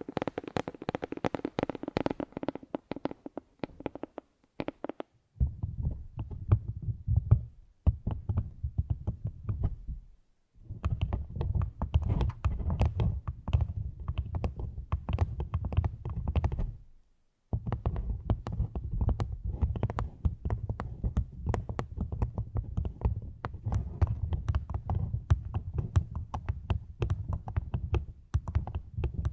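Close-miked ASMR trigger sounds: dense crackling and scratching with a deep rumble, in long stretches broken by brief pauses.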